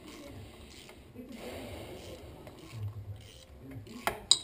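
Hands handling metal engine parts, a cylinder head and timing chain, on a workbench: soft rustling and light handling noise, then two sharp metallic clinks near the end.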